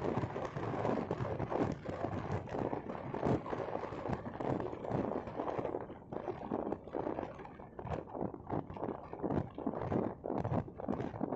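Road and tyre noise of a moving car heard from inside the cabin: an uneven low rumble broken by many small knocks and thumps.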